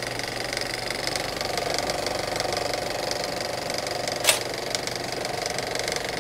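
A steady, fast mechanical rattle like a small running machine, with one sharp click about four seconds in.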